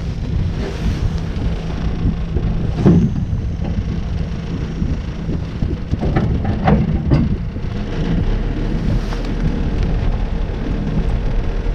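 Wind rumbling on the microphone aboard a small boat, with a few knocks about three seconds in and again around six to seven seconds.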